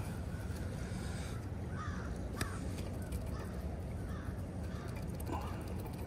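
Steady low rush of flowing creek water, with a few faint bird calls scattered through it and one sharp click about two and a half seconds in.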